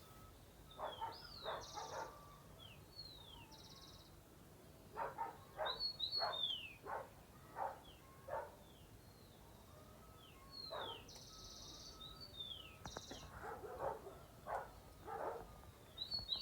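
Birds calling in the countryside: repeated short whistled calls that slide down or up in pitch, with a few brief buzzy notes. Clusters of short sharp sounds come a few at a time, about a second in, around five to seven seconds in, and again near the end.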